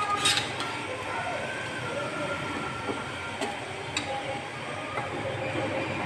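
Steady rushing noise of a pot cooking on the stove, with a few light clicks.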